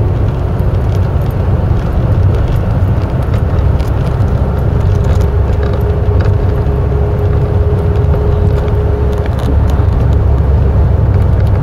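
Mk3 Ford Cortina GXL cruising at about 30 mph, heard inside the cabin as steady engine and road rumble. A faint steady whine comes in for a few seconds midway.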